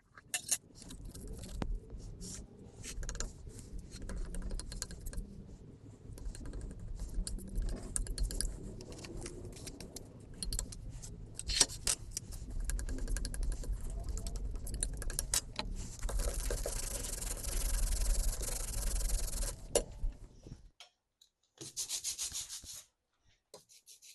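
Black ink being worked at a Vandercook No. 1 proof press: a long run of scraping and rubbing with many clicks and a low rumble. It ends in a steady hiss that stops about twenty seconds in, followed by a second short hiss.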